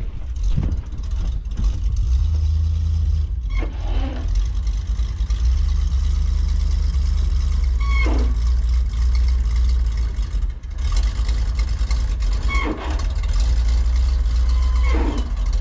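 Truck engine running with a steady low rumble, broken by a few short falling squeaks.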